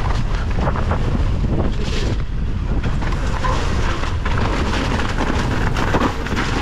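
Wind buffeting the camera microphone in a loud, steady low rumble as an electric mountain bike rides down a wet forest singletrack. Frequent short knocks and rattles come from the tyres and bike over stones and roots.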